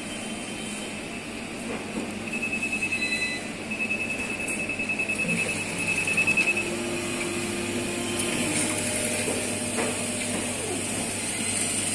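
Siemens ADVIA 1800 chemistry analyzer starting a run: a high beeper sounds rapid pulsing beeps for a few seconds over the machine's steady hum. This is followed by the lower whir of its motors as the mechanisms begin moving.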